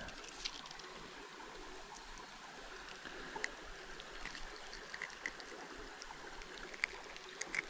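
Shallow, rocky creek flowing with a faint, steady trickle, with a few small sharp ticks scattered through it.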